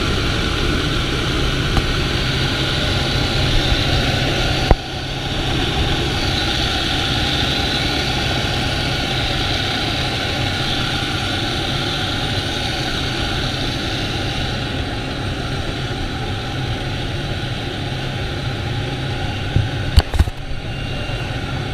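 Pilatus PC-6 Porter jump plane's turboprop engine and propeller running steadily during the climb, heard from inside the cabin. A sharp click about five seconds in and a few sharp knocks near the end.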